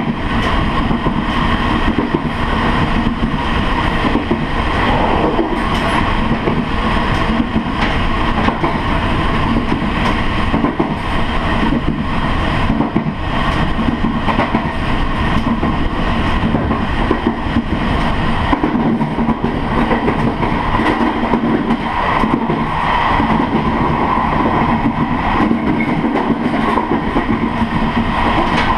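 Chu-kuang Express passenger train running at speed, heard from on board: steady wheel-and-rail rolling noise with faint clicks.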